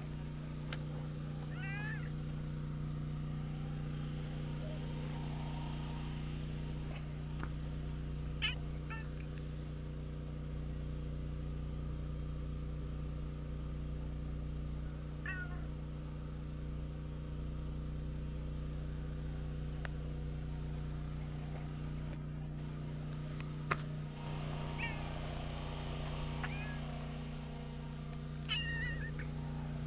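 Tortoiseshell cat giving short, soft meows, about six spread out, as it seeks affection. Underneath runs a steady low hum, and there is one sharp click about two-thirds of the way through.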